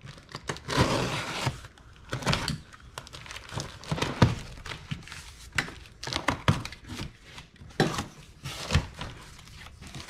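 Large cardboard shipping box being opened by hand: cardboard and packing tape tearing and crinkling as the end flaps are pulled open, with scattered knocks and thunks as the box is handled.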